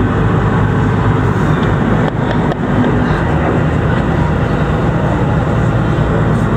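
Tour boat's engine running, a loud steady noise with a strong low hum.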